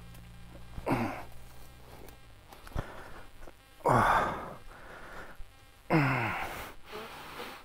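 A fallen motorcycle rider groaning in pain three times, each groan sliding down in pitch, about a second, four seconds and six seconds in. A low steady hum underneath dies away about two seconds in.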